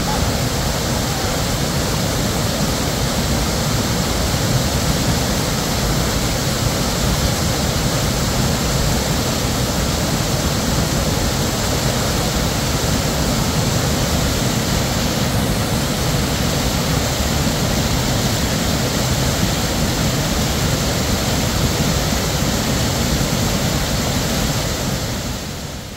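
A shallow stream rushing and splashing over small rock cascades: a steady rush of falling water that drops away near the end.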